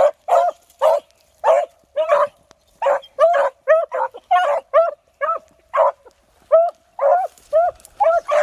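Beagles baying, short bawls in quick succession at about two a second, the hounds giving tongue as they work a rabbit's scent line.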